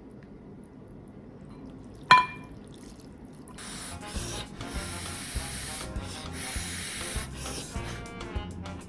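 Background music with a steady bass line. About two seconds in comes a single sharp, ringing clink, like metal or glass struck in a kitchen. From midway a steady hiss of cooking or water noise runs with short breaks.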